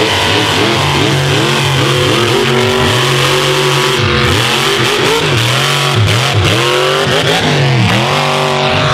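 Mega truck's engine revving hard again and again, its pitch climbing and dropping back repeatedly as the truck spins its tires through loose dirt.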